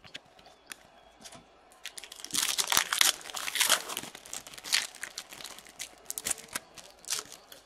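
A trading-card pack wrapper crinkling and tearing as the pack is ripped open. The crackle is loudest about two to four seconds in and trails off into scattered crinkles.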